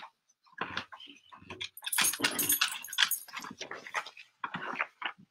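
Clothing rustling and small bumps as people shift in front of a laptop microphone, irregular throughout, with a loud burst of close rustling about two seconds in.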